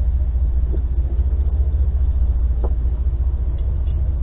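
Steady low rumble throughout, with two faint brief higher sounds, one about a second in and one past the middle.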